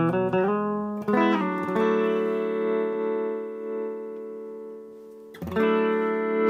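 Electric guitar played through a Crucial Audio Tone-Nugget vacuum-tube booster pedal into a small Yamaha solid-state practice amp: a few quick picked notes, then a chord left ringing and slowly fading, and a new chord strummed about five seconds in. The pedal is engaged and boosting, with plenty of volume.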